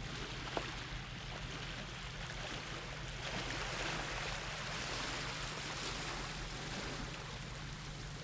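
Small waves of the flooding tide washing in over a stony shore, the wash swelling about three seconds in and then easing off.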